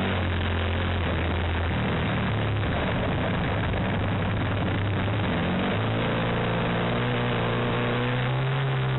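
Model-aircraft glow engine running with its propeller turning, heard close up from a camera on the plane. The engine note is steady at first, goes rough and unsteady for a few seconds in the middle, then settles and climbs slightly in pitch near the end.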